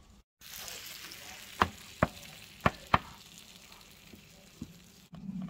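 Freshly baked eggplant, tomato and mozzarella sizzling in a hot baking tray: a steady hiss that slowly fades, with four sharp clicks between about one and a half and three seconds in.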